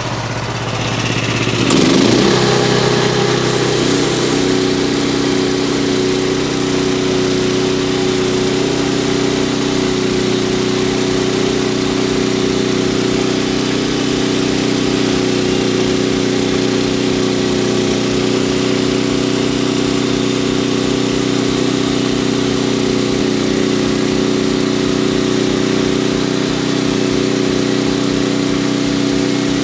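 Frontier portable bandsaw sawmill running under load as its band blade cuts a nearly 20-inch-wide southern yellow pine log. The sound steps up about two seconds in as the blade enters the wood, then holds a steady engine note with a hiss of sawing over it, without bogging down.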